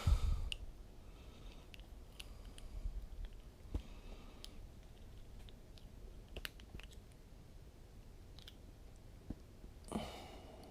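Faint, scattered clicks and small handling noises as hooks are worked out of a deeply hooked perch by hand.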